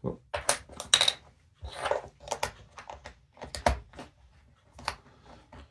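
Plastic drag-chain (cable chain) links being handled and snapped together by hand: an irregular run of sharp plastic clicks and clacks.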